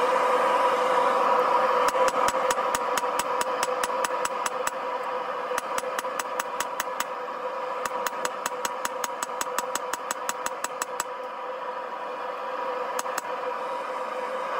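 Hand hammer striking hot rebar steel on an anvil in three quick runs of blows, about five a second, with two last blows near the end. Under it the steady roar of a propane forge burner.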